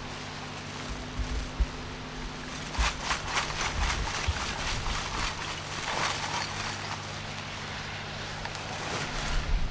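Lumps of charcoal clattering as they are tipped out of a plastic crate into a sack: a rattling run of knocks that starts about three seconds in and lasts a few seconds.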